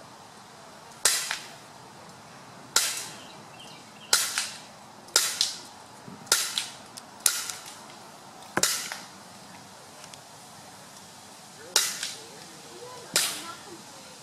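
A barbecue lighter's piezo igniter, wired to two screws in a PVC combustion chamber, clicked about ten times at irregular intervals, some in quick pairs. Each click is a sharp snap as the spark jumps the gap between the screw tips, showing that the ignition works.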